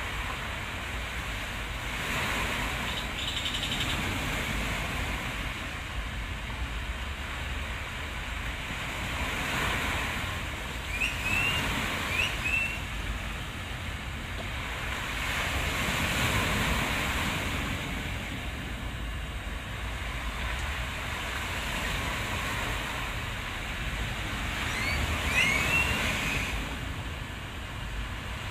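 Sea surf washing in, swelling and fading every six seconds or so over a steady low wind rumble. Twice, about a third of the way in and near the end, a few short high chirps sound.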